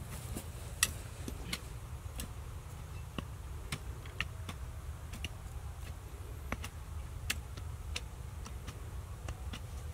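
Hoe blades chopping into dry, crusted soil: irregular sharp clicks and knocks, about one or two a second, the loudest just under a second in, over a steady low rumble.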